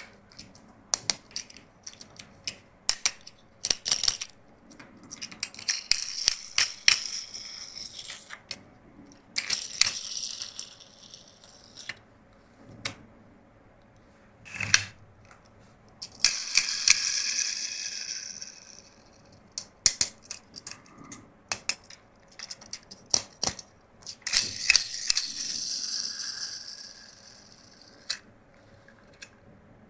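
Plastic toys and packaging being handled: many sharp plastic clicks and taps, with four rustling, crinkling stretches of a second to three seconds each.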